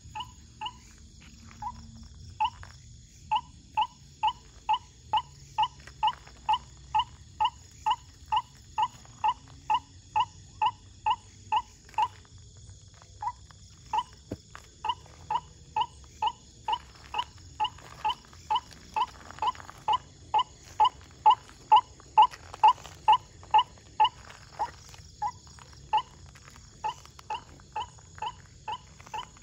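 White-breasted waterhen call: one short note repeated steadily a little over twice a second. It pauses briefly about twelve seconds in and is loudest about two thirds of the way through. Night insects hiss steadily behind it.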